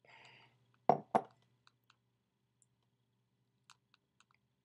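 A man spitting chewing-tobacco juice into a glass jar: a faint wet sputter, then two sharp spits about a quarter second apart, followed by a few faint mouth clicks.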